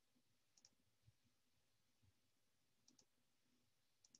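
Near silence, broken by three very faint pairs of clicks from a computer mouse button.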